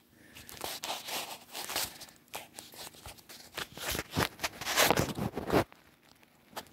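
Handling noise: a phone rubbing and scraping against hands and clothing as the person holding it moves, a dense run of crackles and rustles that stops abruptly about a second before the end.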